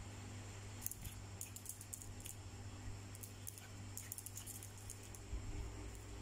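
Scattered runs of light, sharp clicks from a small poodle-type dog's claws on a tiled floor, starting about a second in, over a steady low hum.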